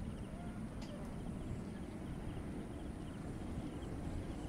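Faint, steady low rumble of an Airbus A330-300 airliner's jet engines on final approach, still distant. A faint high chirp repeats quickly in the background.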